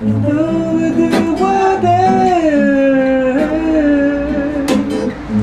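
A man singing a slow melody in long, gliding held notes while strumming an acoustic guitar, with a few sharper strums standing out.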